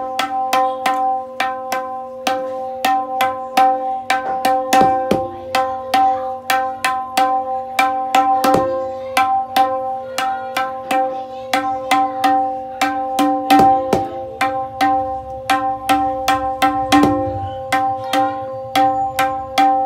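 Handmade tabla dayans tuned to C sharp, struck by a player's fingers: crisp ringing strokes about three a second over a steady sustained pitch, with a few heavier, deeper strokes mixed in.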